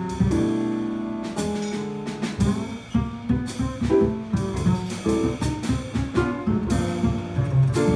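Jazz double bass solo, plucked in a quick run of notes, with light drum and cymbal accompaniment.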